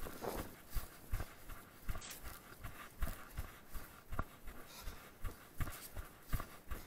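A runner's footsteps on grass and soft forest ground, a steady thud nearly three times a second at running pace.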